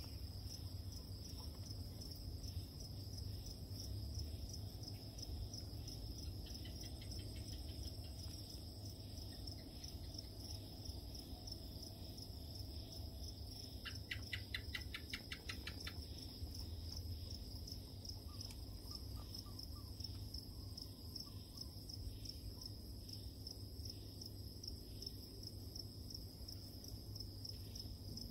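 Insects chirring in a steady high-pitched trill, with a low rumble underneath. About halfway through, a faster pulsing trill sounds for about two seconds.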